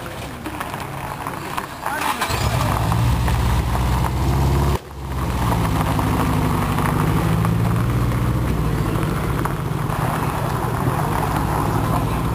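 Loud aftermarket exhaust of an old Japanese car revving, swelling up about two seconds in. It cuts off sharply for a moment near five seconds, then runs on with the revs rising and falling.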